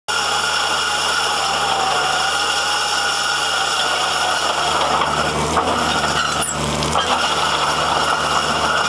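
Excavator engine running steadily while its Robi Multi Master screening bucket works, with fine soil pouring out through the screen. The sound starts abruptly.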